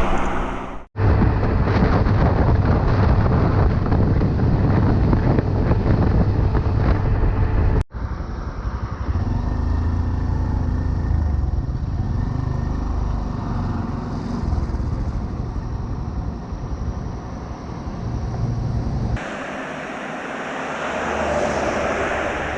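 A small 125 cc motorcycle riding along, with engine drone and wind rumble on the microphone. The sound is cut off sharply about a second in, again near eight seconds, and changes abruptly near the end as one clip gives way to the next.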